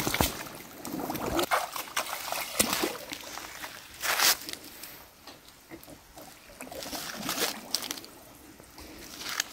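Shallow creek water splashing and sloshing around a person's legs as he wades in, in irregular strokes, the loudest splash about four seconds in.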